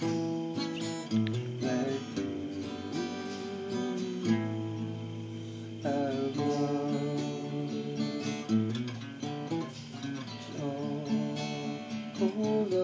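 Acoustic guitar strummed through a series of chords in an instrumental break, with steady repeated strums.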